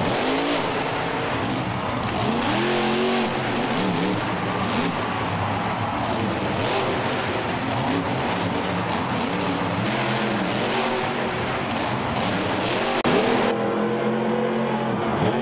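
Grave Digger monster truck's supercharged V8 revving hard, its pitch rising and falling again and again over a loud, dense noise.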